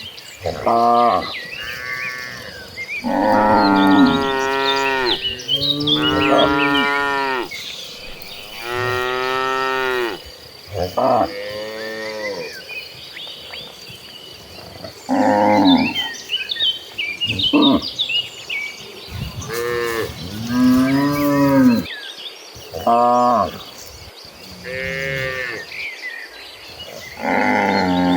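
A herd of cattle mooing: about a dozen long calls from several animals, one after another and sometimes overlapping, each a second or two long, some low and some higher-pitched.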